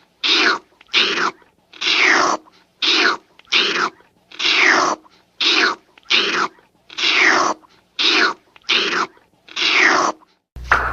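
Old cartoon sound effect: a long run of short, harsh, hissing strokes, each falling in pitch, coming about once a second and sometimes in quick pairs.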